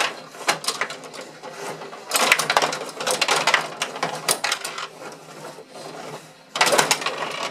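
Gretzky rod table hockey game in play: rapid clattering and clicking as the rods are pushed and twisted and the plastic players and puck knock against each other and the boards. It comes in bursts, busiest about two seconds in and again near the end.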